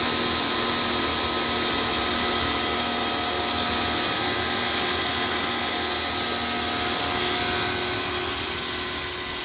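HGTV Home 1750 PSI pressure washer running steadily, its pump motor humming under the hiss of the water jet spraying.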